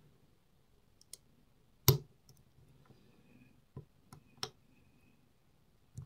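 Lock-picking tools working in a cheap cruciform (cross-keyway) lock: a handful of sharp little metal clicks, the loudest about two seconds in and three more in quick succession a little past the middle.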